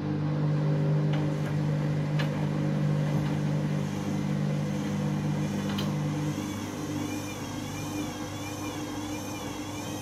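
Candy front-loading washing machine turning its drum with water and laundry inside: a steady motor hum, with a high whine that wavers up and down about once a second joining about four seconds in. The owner says the machine is playing up.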